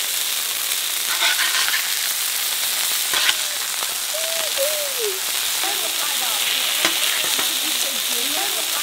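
Hamburger patties sizzling on a hot propane flat-top griddle, a steady hiss, with a few sharp clicks as a metal spatula scrapes under and flips them.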